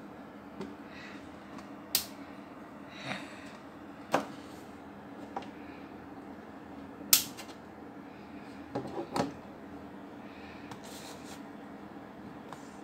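Scattered light clicks and knocks of objects being handled, about eight in all, the sharpest about seven seconds in and a quick run of three near nine seconds, over a steady low hum.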